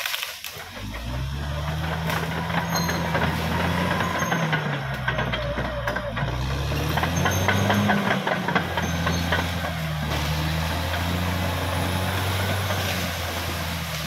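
Caterpillar D6R XL bulldozer's diesel engine working under changing load, its pitch rising and falling, with a brief dip in level at the start before it picks up again.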